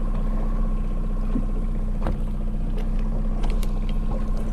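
Boat motor running steadily at trolling speed, an even low hum that holds throughout, with a few light clicks about two and three and a half seconds in.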